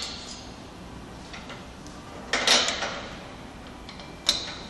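Sharp metal clanks as a steel pipe fitting with hose is handled and fitted into the flanged end of a railway axle housing: a cluster of knocks about two and a half seconds in and a single clank near the end, each ringing briefly, over a steady workshop hum.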